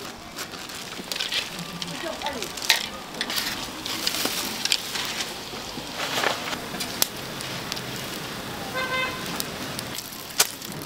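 Street-food stall sounds: a hot griddle sizzling while metal utensils clatter and a spatula scrapes through seeds, with voices in the background. A short beep sounds about nine seconds in.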